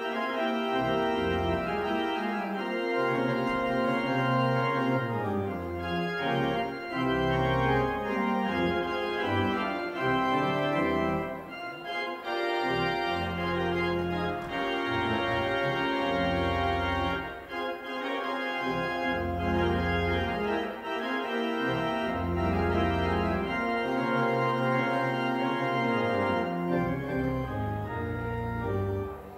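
Pipe organ playing slow, sustained chords, with a deep bass line that drops out for a few seconds now and then.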